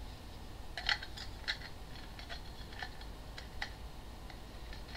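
Small plastic clicks and knocks, about six spread out, as the parts of a disassembled Nerf Maverick Rev-6 blaster are handled and slid together.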